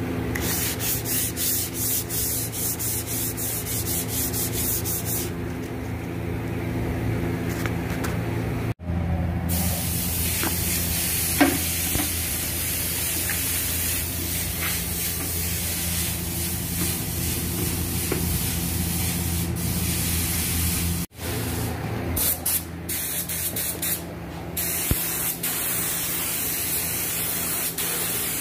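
Hand sanding with 400-grit sandpaper on a primed panel, with quick rasping strokes, and after a cut black lacquer being mixed in a container. After a second cut an air spray gun hisses, starting and stopping a few times and then spraying steadily as the first coat of matte black automotive lacquer goes on. A steady low hum runs underneath.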